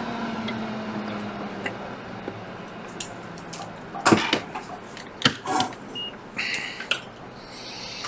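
Small clicks and taps of tools being handled on an electronics repair bench, with one brief high electronic beep about six seconds in. A low hum, sliding down in pitch, fades out over the first few seconds.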